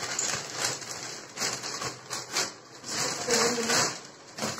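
Plastic courier mailer crinkling and rustling in irregular bursts as it is opened and a cardboard box is pulled out of it.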